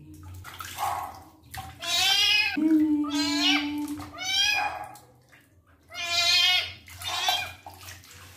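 Young kitten meowing repeatedly while being bathed, about five high-pitched cries in a row.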